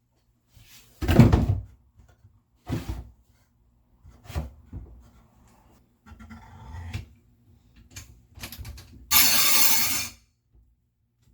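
Wooden knocks and thunks, three of them about a second and a half apart, then some rustling and light clicks, and near the end a louder noisy sound about a second long: tools and wooden holders being handled on a workshop wall.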